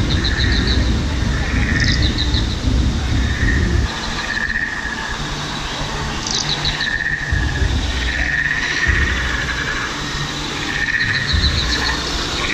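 Insect- or bird-like chirping: short trills of a few quick pulses, repeating every second or two, with warbling tones beneath, over a low rumble that comes and goes.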